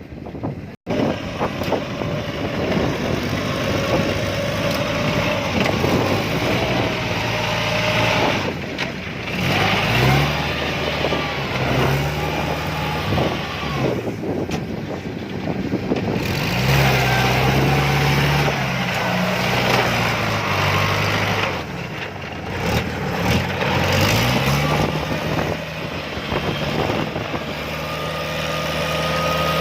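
Diesel engine of a tracked harvesting machine labouring in deep mud, its pitch rising and falling again and again as it is revved under load.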